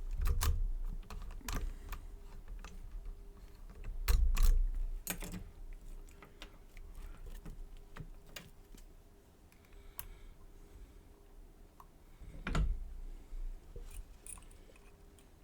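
Irregular small clicks and knocks from a Mul-T-Lock Garrison padlock and lockpicking tools being handled. There are heavier thumps just after the start, about four seconds in and about twelve and a half seconds in, with lighter ticking between.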